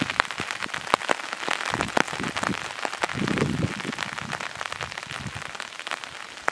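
Light rain: scattered raindrops landing close by as many separate, irregular sharp ticks over a soft steady hiss, easing slightly toward the end. A brief low rumble about three seconds in.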